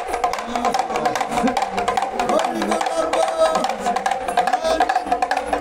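Damru (hand-held hourglass rattle drum) twirled without pause, its knotted cords striking the two drumheads in a fast, even rattle with a steady ringing tone.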